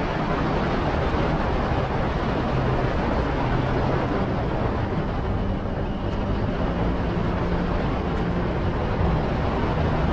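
BMW R1250GS boxer-twin engine running at a steady cruising speed, heard from on the bike over a steady rush of wind noise.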